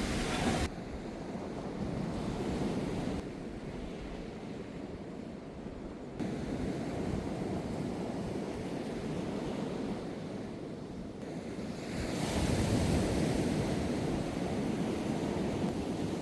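Sea waves washing onto a beach, with wind buffeting the microphone. The level jumps up or down abruptly several times.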